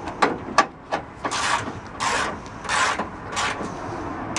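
Ratchet wrench tightening a battery hold-down bolt. Each back-stroke gives a short burst of ratchet clicking, about every two-thirds of a second, with a couple of sharper clicks near the start.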